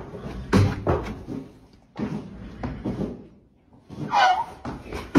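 A few sharp knocks and bangs on a wooden stable stall door, with a short pitched cry about four seconds in.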